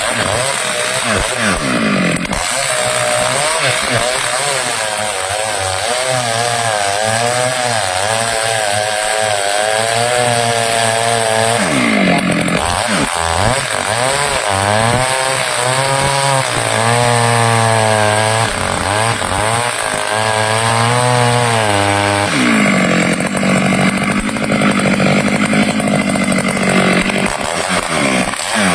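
Stihl chainsaw cutting teak, its engine pitch wavering under load, with the revs dropping and climbing again a few times.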